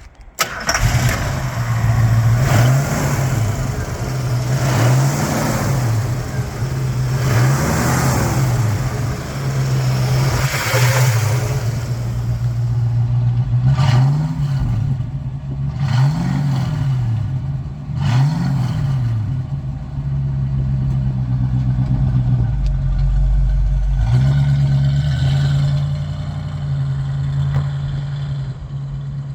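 1969 Ford Mustang's 302 cubic-inch V8 starting and catching, then blipped about six times and settling into an idle.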